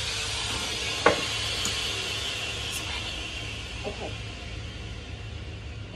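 Small electric pet trimmer running with a steady buzz that slowly fades, over a low steady hum; a single sharp click about a second in.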